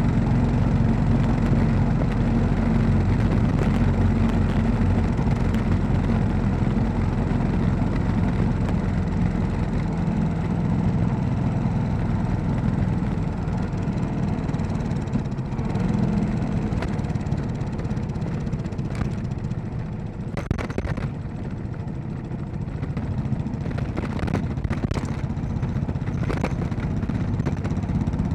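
Royal Enfield Classic 500's single-cylinder engine running as the motorcycle is ridden on a gravel road. The engine sound eases off about two-thirds of the way through and then picks up again, with a few short knocks in the later part.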